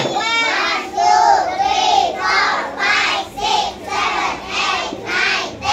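Young children singing together in high voices, in short sung phrases.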